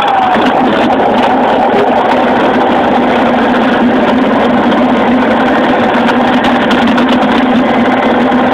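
Radio-controlled model plane's motor running steadily in flight, picked up by a phone taped under the plane, with loud rushing wind over the microphone. A higher tone slides down in pitch and fades out in the first half second.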